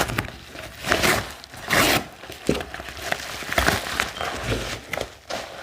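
Shipping box being opened by hand: irregular tearing and crinkling of packaging in a string of loud rustles.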